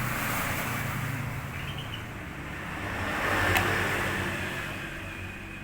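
Active speaker's amplifier giving off a low rumbling, growling hum with hiss (the "ngorok" snoring noise), the symptom of a shorted final output transistor. It swells briefly about three and a half seconds in, with a single click.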